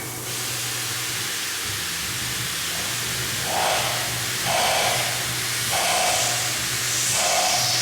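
Tormach CNC lathe boring a 1045 cold-rolled steel cone with a 3/4 inch boring bar: steady spindle hum under a hiss. From about halfway, a cutting sound swells and fades about once a second.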